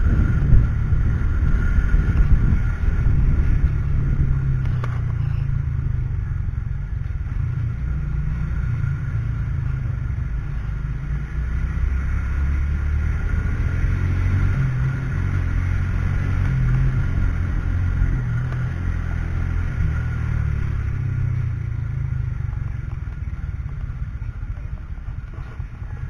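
Small motorcycle's engine running at low speed, with wind rumble on the helmet-mounted microphone; the sound eases off and gets quieter near the end as the bike slows to a stop.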